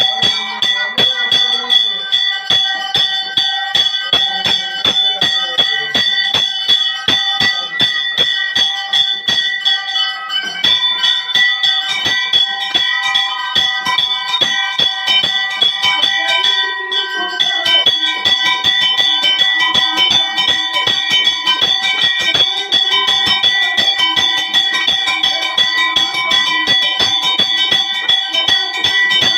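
Temple bells ringing without pause, struck several times a second, each strike leaving a clear, steady ring.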